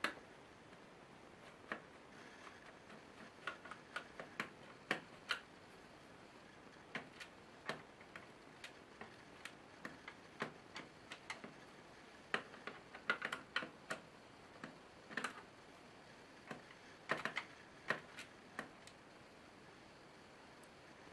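Small screwdrivers clicking and tapping against screws and the plastic bottom case of a laptop as it is taken apart. The clicks come irregularly, with quicker flurries about halfway through and again near the end.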